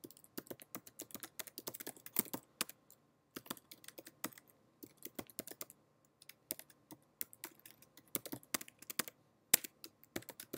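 Typing on a computer keyboard: quick runs of keystroke clicks with brief pauses between them.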